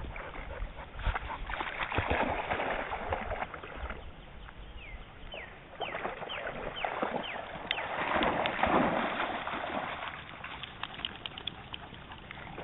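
Shallow river water splashing and sloshing as two dogs wade through it, in uneven swells that are loudest about two seconds in and again around eight to nine seconds.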